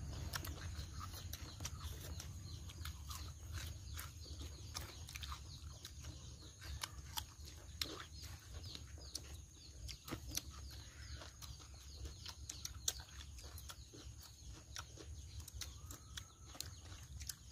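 Close-up eating sounds: chewing, lip-smacking and fingers pulling at roast chicken, an irregular run of small sharp clicks over a low steady hum.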